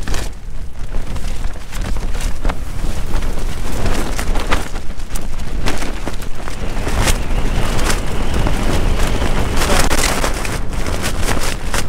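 Strong gusting wind battering a tent from outside, heard from inside it: the fabric flaps and cracks in sharp snaps as the walls bend inward. Gusts swell and ease, with stronger ones about four seconds in and again near ten seconds. It is described as fierce.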